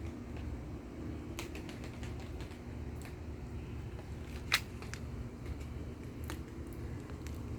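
Wood bonfire crackling, with irregular snaps and one loud pop about halfway through.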